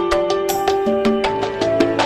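Background music: plucked string melody over a steady, quick percussion beat.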